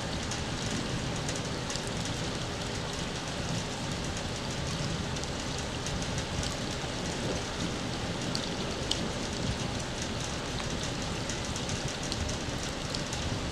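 Steady rain falling, with scattered drops tapping.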